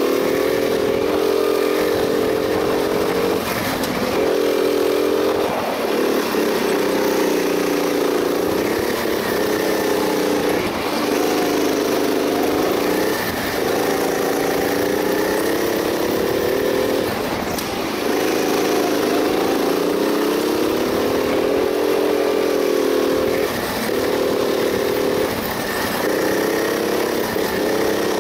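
Go-kart engine heard from on board while lapping. It revs up in pitch, then drops off briefly as the throttle is lifted for each corner, over and over.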